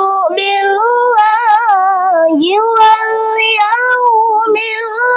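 A child's high voice reciting the Quran in the melodic tilawah style, holding long, wavering, ornamented notes, with a brief break and glide about two and a half seconds in.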